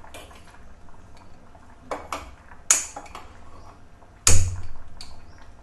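Steel tempering pan and utensils clinking and knocking on a gas stove's burner grate: a few separate sharp metal strikes with short ringing, the loudest about four seconds in with a dull thump under it.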